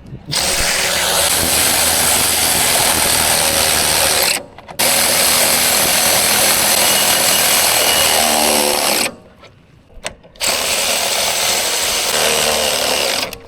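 Power drill running in three long runs of about four seconds each, stopping briefly between them.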